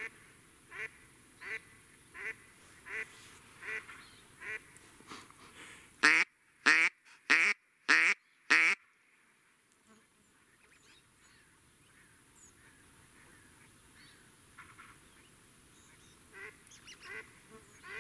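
Duck quacks: a run of evenly spaced quacks, then five loud quacks in quick succession about six seconds in, followed by faint scattered calls.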